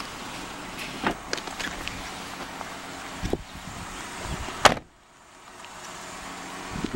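A few small clicks and a thump, then the front door of a 2012 Dodge Grand Caravan minivan shut with one sharp, loud slam about two-thirds of the way through.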